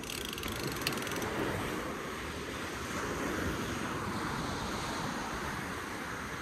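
Small surf washing up the sand with wind buffeting the microphone, a steady rushing noise that swells and eases gently. A quick run of fine ticking in the first second or so, with one sharper click.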